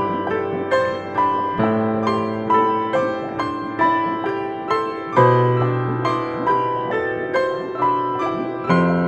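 Slow, relaxing piano music: an even run of single notes about twice a second over held bass notes that change every few seconds.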